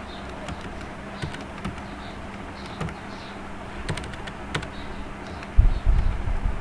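Computer keyboard being typed on: scattered, irregular key clicks over a steady low hum. Near the end a louder low thumping rumble.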